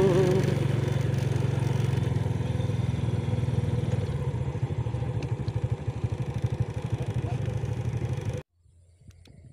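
Small motorcycle engine running at idle with a steady pulsing beat. The sound cuts off abruptly near the end, leaving only faint outdoor sounds.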